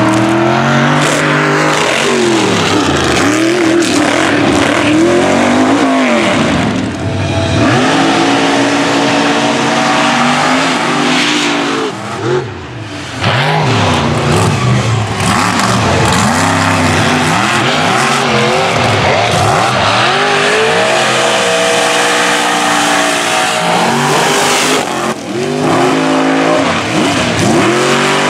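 Mega truck engines running wide open at full throttle, revving up in pitch and falling back again and again as the trucks launch and accelerate, with a short dip in level about twelve seconds in.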